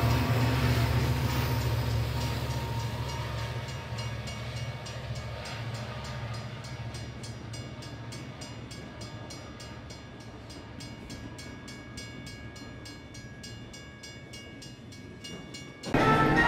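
Small amusement-park ride train rumbling along its track, fading away over the first few seconds. A faint, fast, even ticking carries on after it.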